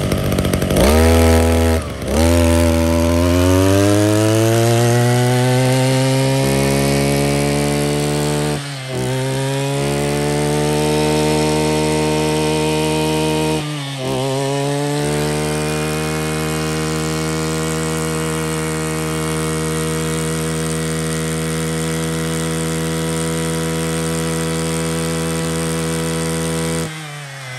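Mitsubishi TL261 26cc two-stroke brush cutter engine revved up and held at high speed. Its pitch climbs over the first few seconds, dips briefly three times, and falls away near the end as the throttle is released.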